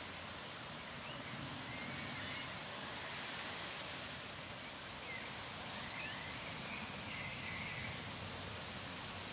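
Steady outdoor hiss with faint bird calls: a few short chirps scattered through it, the clearest ones a little after halfway.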